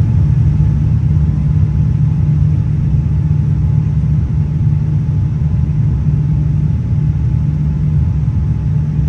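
Steady low rumble of airliner cabin noise in flight, from the engines and the airflow over the fuselage, with a faint steady hum above it.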